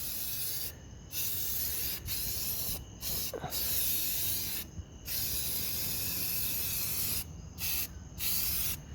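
Aerosol spray can of primer hissing in a series of bursts, from under a second to about two seconds long, with short breaks as the nozzle is pressed and released.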